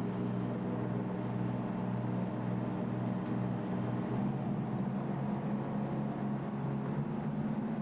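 Boat engine running steadily, its pitch shifting up slightly about four seconds in.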